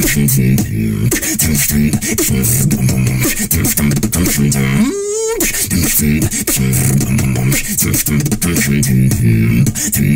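Human beatboxing: fast vocal kick, snare and hi-hat sounds over a humming vocal bass line that repeats in short phrases. About five seconds in the bass drops out for a rising, wavering sweep, then the groove comes back.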